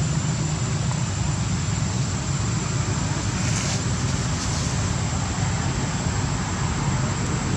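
Steady low rumbling outdoor background noise, with a faint steady high-pitched whine above it.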